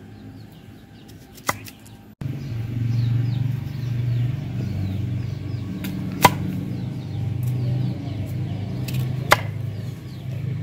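Knife chopping peeled raw green mango on a wooden chopping block: three sharp knocks of the blade striking the wood, a few seconds apart, the middle one loudest. A steady low hum runs underneath from about two seconds in.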